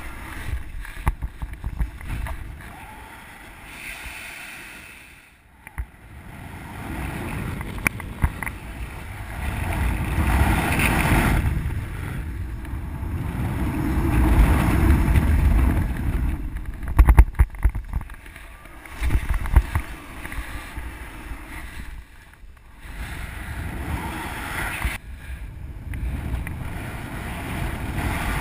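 Rushing wind on the microphone of a paraglider's harness-mounted camera, swelling and fading several times as the wing is flown through acrobatic manoeuvres (SAT and dynamic full stall), with a few sharp knocks about two-thirds of the way in.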